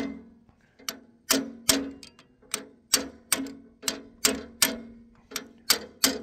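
Sharp metal-on-metal clacks at the Farmall M's overhead valve gear, evenly repeated about two to three times a second, each with a short metallic ring, as a jammed valve is worked up and down to free it.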